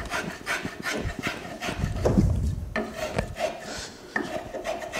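Metal spokeshave cutting along the faceted handle of a wooden spoon, knocking down the peaks between the facets. It makes a quick series of short scraping cuts, up to about four a second, with brief pauses between runs.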